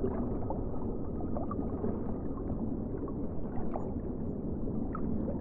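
Muffled, steady water sloshing and gurgling, with faint short rising squeaks now and then.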